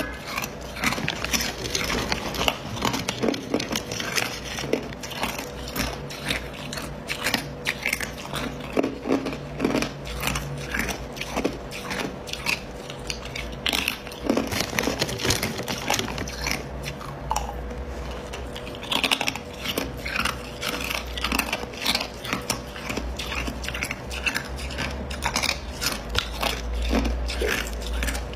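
Hard ice being bitten and chewed, a rapid, irregular string of sharp crunches with no let-up.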